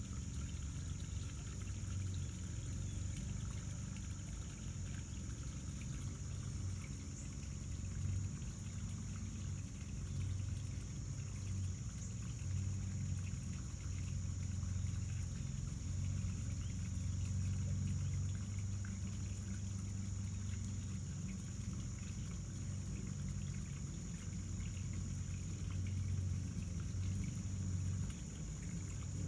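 Steady background hum with a continuous thin high-pitched whine and a faint hiss, unchanging throughout.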